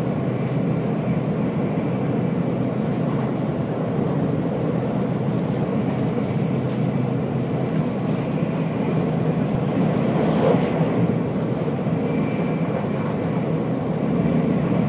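Steady rumble and rush of a Nozomi Shinkansen bullet train running at speed, heard inside the passenger cabin, swelling slightly about ten seconds in.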